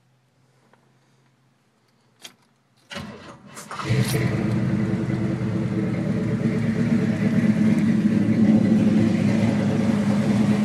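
A 1970 C10 pickup's engine being started: a sharp click, then about a second of cranking before it catches about four seconds in and settles into steady running.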